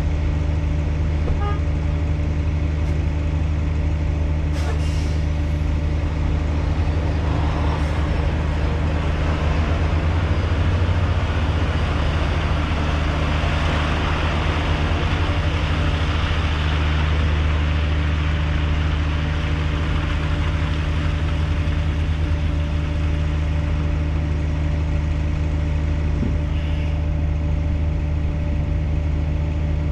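Heavy diesel truck engine idling steadily close by. A swell of noise in the middle comes as another tractor-trailer rolls past, and short air hisses come about four and eight seconds in.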